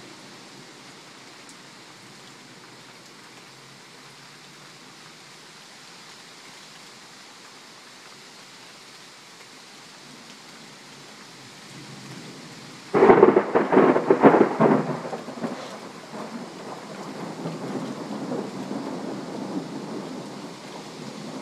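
Steady rain hiss, then about two-thirds of the way in a sudden loud thunderclap with crackling for a couple of seconds, followed by rumbling thunder that carries on under the rain.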